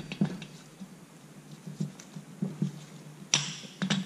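Small metal handling noises as a new, oiled piston pin is pushed through an aircraft piston's pin bore: scattered light clicks and taps, with one brief, louder rustling scrape a little past three seconds in.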